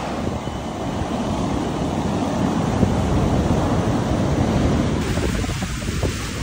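Ocean surf washing ashore, with wind buffeting the microphone as a low rumble. The sound shifts slightly about five seconds in.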